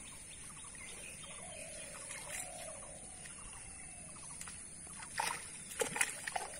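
Water sloshing and splashing as a seine net is drawn through a pond and a man swims alongside it, with a few short, sharper splashes about five to six seconds in.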